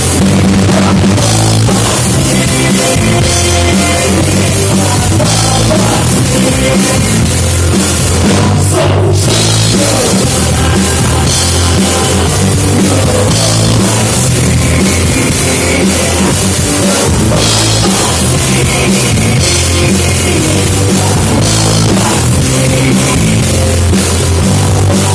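Live rock band playing loud and steady, with electric guitars, bass and a drum kit with crashing cymbals.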